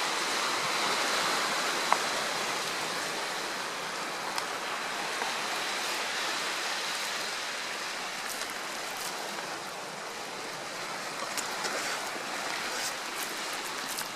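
A steady rushing noise, with a few faint clicks scattered through it.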